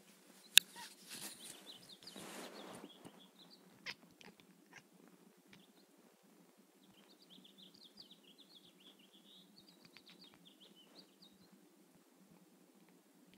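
Small birds chirping in quick, high, wavering twitters, in a short run and then a longer one in the second half. A sharp click about half a second in and a brief rustle come before them.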